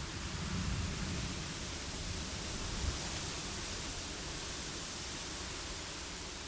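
Steady wind and rain, an even hiss, with a low rumble swelling briefly about half a second in.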